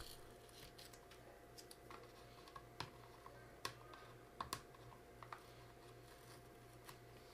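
Faint, scattered clicks and crinkles as fingers peel aluminum tape off a laptop's optical drive, over a faint steady hum.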